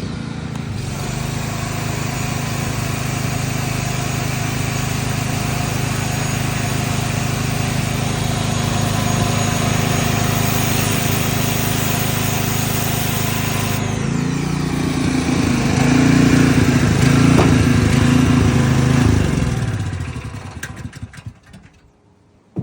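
Portable generator engine running under the load of a Ryobi 1600 psi electric pressure washer, with the hiss of the spray. About 14 seconds in the engine note shifts and gets louder. Near the end everything winds down and stops.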